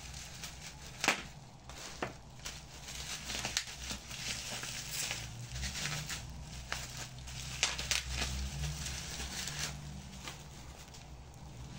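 Rustling and handling noises with scattered light clicks and knocks, the sharpest about a second in and again about two seconds in.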